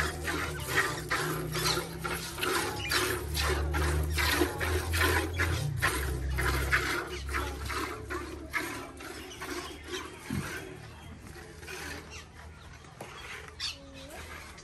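Hand milking: jets of milk squirting from the teats into a steel pail already holding milk, about two squirts a second in a steady rhythm, thinning out and fading after about eight seconds.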